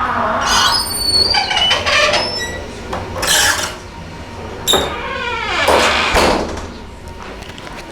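Creaking doors fitted with Sargent door closers being opened and closed: a run of squeals that glide up and down in pitch, with a sharp click just before halfway.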